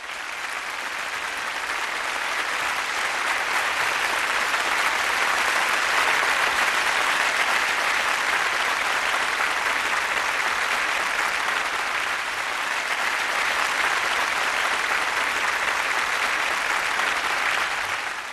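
Applause: a group clapping steadily, building over the first few seconds and holding even until it cuts off abruptly at the end.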